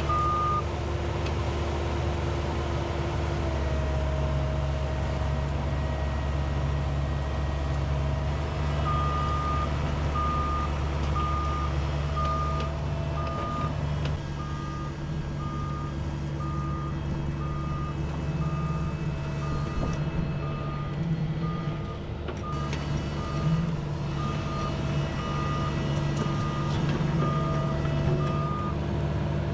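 Diesel engine of heavy equipment running steadily under a backup travel alarm. The alarm beeps briefly at the start, falls silent, then beeps evenly from about nine seconds in until near the end.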